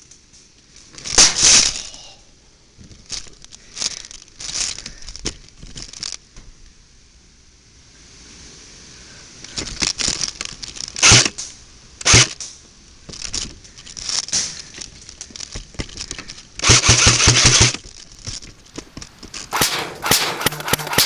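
Footsteps crunching through dry leaves and brush on the forest floor, in uneven bursts at about a walking pace, with a quicker flurry of steps near the end.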